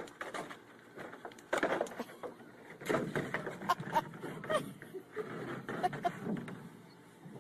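A hard plastic paddling pool scraping and knocking on the floor as a small dog moves about underneath it, with a few short high squeaks in the middle.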